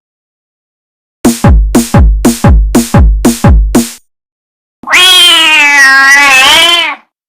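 Meme-edit electronic music: a drum-machine kick beats about nine times at roughly three a second, then, after a short gap, one long wavering pitched cry lasting about two seconds.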